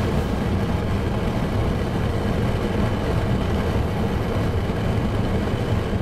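Pickup truck driving, its engine and road noise heard from inside the cab as a steady, mostly low-pitched drone.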